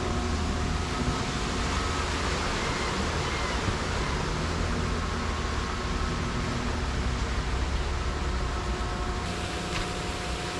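Steady mechanical drone of machinery running during a fishing boat's offload: an even low rumble under a faint constant whine, with no change in speed.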